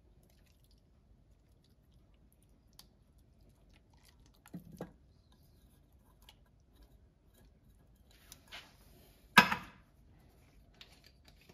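Thick tomato sauce sliding out of a small metal can into a ceramic slow-cooker crock, with faint wet squishing and a couple of soft taps. A single sharp clack a little after nine seconds in as the empty tin can is set down on the counter.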